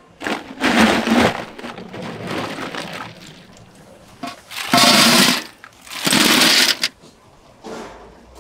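Ice cubes clattering as they are poured into stainless steel containers, in several loud bursts of under a second each.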